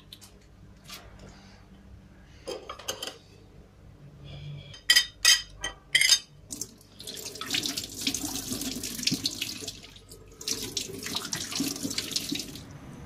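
Hands mixing raw chicken pieces with spices in a metal bowl: wet squelching and sloshing in two long stretches in the second half. A few sharp knocks come about five to six seconds in.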